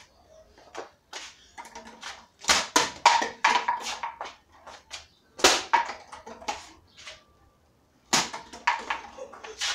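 Irregular knocks and clatters of objects being handled and knocked about, busiest in the middle and pausing briefly near the end.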